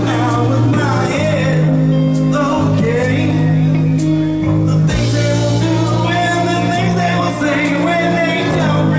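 Live rock band playing: electric guitar, bass and drums, with a male singer's vocal over the chords.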